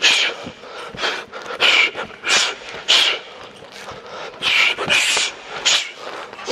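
A kickboxer's short, sharp hissing exhales, about eight of them, often two in quick succession, timed to his kicks and punches on a heavy bag.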